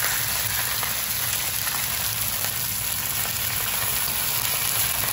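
Lobster tails and sliced garlic sizzling steadily in hot oil in a nonstick wok.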